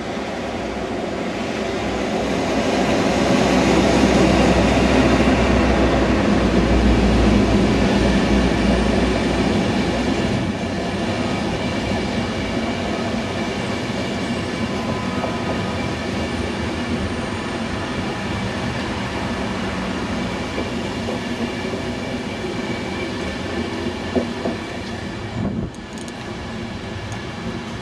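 Class 57 diesel locomotive passing at the head of a hauled Pendolino, its engine loudest a few seconds in. The coaches then keep up a steady rumble of wheels on rail as they roll by, which drops away briefly near the end.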